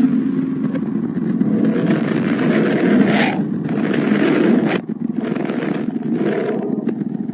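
A sonified 'planet sound' from space data: a steady, dense low rumble with two hissing surges over it, the first breaking off abruptly about two-thirds of the way in.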